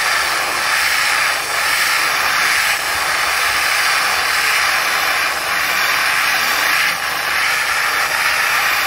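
Ultra-high-pressure (500 bar) water jet with abrasive blasting a steel railway wagon, a loud steady hiss of spray as it strips rust and old paint, with a few brief dips in level.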